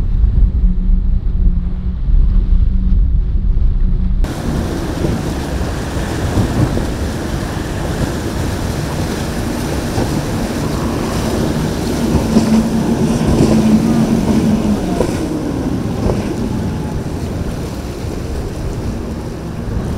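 Boat engines and rough inlet waves, with wind buffeting the microphone. About four seconds in, the low rumble cuts abruptly to a brighter wash of water and engine noise, and a steady engine drone stands out briefly around the middle.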